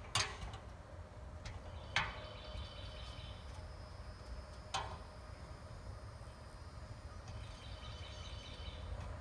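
Three sharp knocks a couple of seconds apart from work on the soffit at the eave, over a steady low outdoor rumble. A high trilling call comes twice in the background, the second time near the end.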